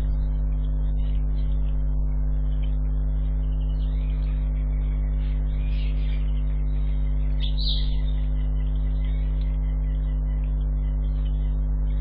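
Steady electrical mains hum picked up in a security camera's audio, with a deep buzz and its overtones. A couple of faint brief chirps come through halfway through and again shortly after.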